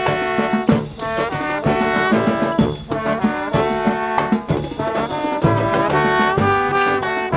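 A live brass marching band playing a tune: trombones, trumpets and saxophones over sousaphones, with a drum keeping the beat.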